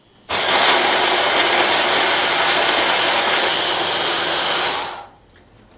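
Stick blender running at full speed, its blade churning a thick sauce of roasted capsicum and nuts in a tall beaker: a loud, steady whir that cuts in just after the start and winds down after about four and a half seconds.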